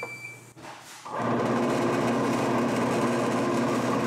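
Lyson Mini Line uncapper's motor and frame drive starting up about a second in and then running steadily with an even mechanical hum, moving an empty frame through the uncapper to check its clearance. Just before it, a click and a short high beep.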